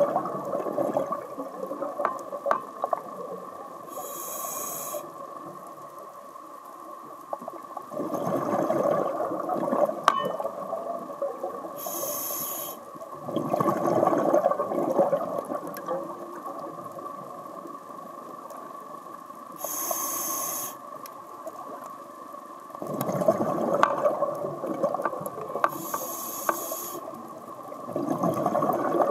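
Scuba diver breathing through a regulator underwater: about four breaths, each a short hiss of inhalation followed by a burst of exhaled bubbles. A steady high-pitched hum runs underneath.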